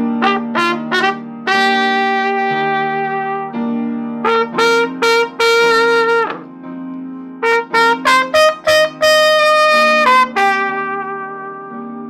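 Improvised instrumental music: a lead instrument plays quick detached notes and longer held notes, some falling in pitch as they end, over a sustained low chord.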